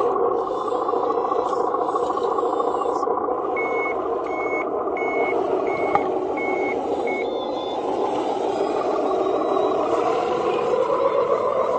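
RC Caterpillar wheel loader's sound module playing a steady diesel engine sound, with a reversing alarm beeping six times in a row a few seconds in as the loader backs up. The engine note climbs near the end, and a light knock comes about halfway through.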